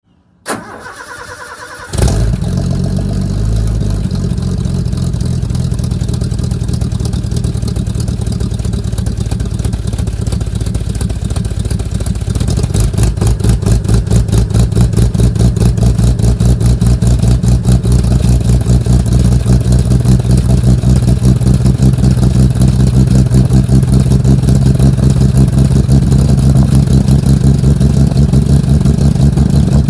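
A 1974 Ford F-250's 4.9-litre (300 cu in) inline-six is cold-started in about 20-degree cold, heard at the tailpipe. The starter cranks briefly and the engine catches about two seconds in, then runs on. About twelve seconds in it gets louder, with a more distinct, even exhaust pulse.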